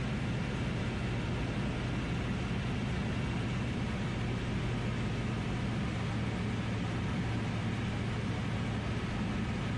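Steady drone of a DynAero MCR01 ultralight's engine and propeller in flight, heard from inside the cockpit, with a constant rush of airflow over the airframe.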